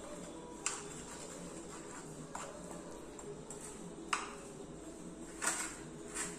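Metal spoon stirring rice flour and jaggery syrup in a ceramic bowl: soft scraping with a few light clinks of the spoon against the bowl, about one every second or two.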